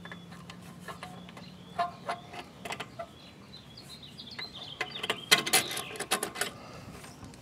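Small metal clicks and taps of a carburetor and its throttle linkage rods being handled and fitted onto a small engine, with a quick cluster of clicks about five seconds in.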